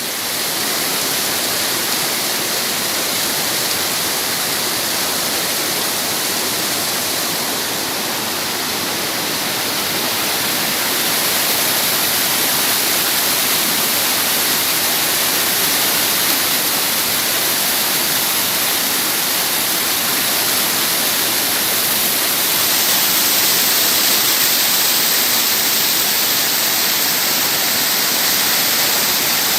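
Steady rush of falling water from a small waterfall, growing slightly louder about a third of the way in.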